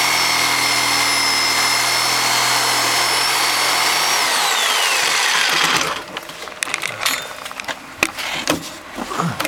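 Ryobi reciprocating saw running steadily as it cuts through a rotten wooden floor joist; about four seconds in the trigger is released and the motor winds down with a falling whine. Scattered knocks and cracks of wood follow.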